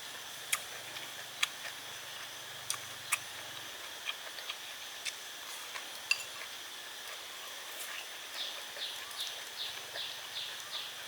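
Outdoor rural ambience with a faint steady high hum and scattered sharp clicks. From about eight seconds in, an animal call: a run of short falling chirps, a little over two a second.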